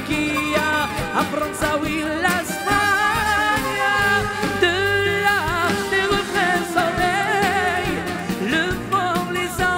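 Live Mediterranean-style band with oud, violins, keyboard and drum kit playing, with a man's voice singing ornamented, wavering lines over it.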